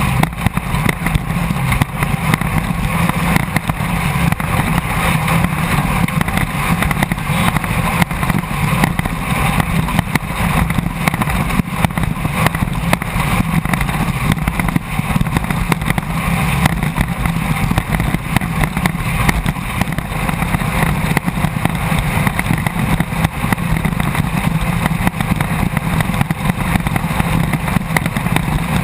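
Class 1600 off-road race car's engine running hard and steady, heard from the onboard camera, over a dense rushing noise with constant small knocks and rattles.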